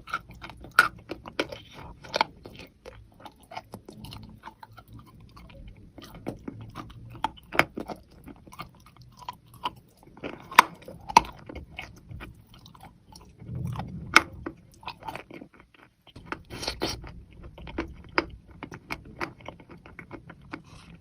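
Close-up crunching and chewing of wet chalk coated in thin clay paste: irregular sharp crunchy bites and chews, with a louder stretch past the middle.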